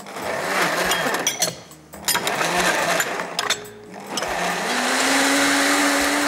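Beko countertop blender blending a green smoothie of lettuce, pears, avocado and almond milk: it runs in two short bursts with brief pauses, then settles into a steady, louder run about four seconds in, its hum rising slightly in pitch as the motor speeds up.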